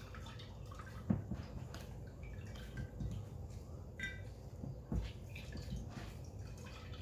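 Faint dripping and trickling of juice from a squeezed cotton nut milk bag into a glass pitcher of blended carrot juice, as the pulp is wrung out by hand, with a few soft knocks.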